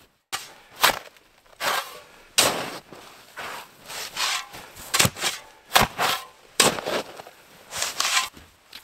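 Snow shovel digging into deep snow that has an icy crust and flinging it aside. The blade bites in with a sharp crunching scrape about once a second, each stroke followed by the hiss of thrown snow.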